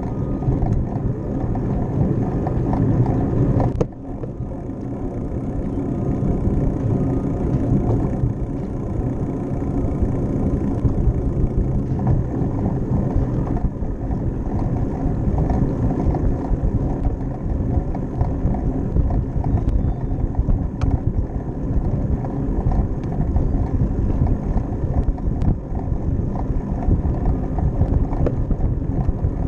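Riding noise of a bicycle on a paved path: wind rushing over the bike-mounted camera's microphone, with tyre rumble underneath. The noise dips sharply for a moment about four seconds in.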